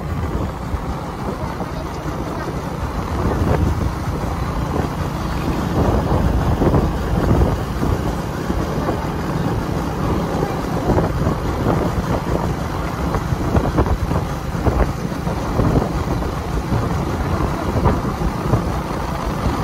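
Wind buffeting the microphone while moving along, a dense steady rumble with constant flutter, over the low running of a vehicle's engine.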